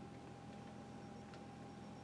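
Quiet shop room tone: a steady low electrical hum with a thin steady whine above it, and one faint click about a second and a half in.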